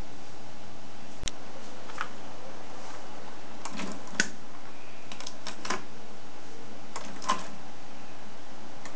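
Scattered light plastic clicks and taps, about ten spread over several seconds, from a hand handling cassette cases, over a steady hiss with a faint low hum.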